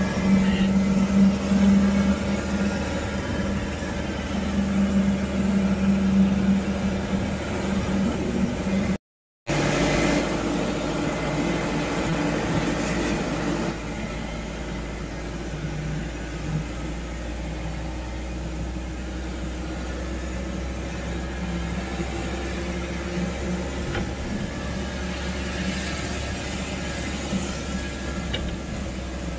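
A vehicle's engine and road noise while driving, a steady hum with a strong low drone over the first nine seconds. It drops out to silence for half a second about nine seconds in, then carries on a little quieter from about fourteen seconds.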